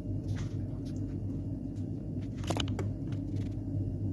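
A steady low hum, with a few short light clicks, the sharpest a little past the middle.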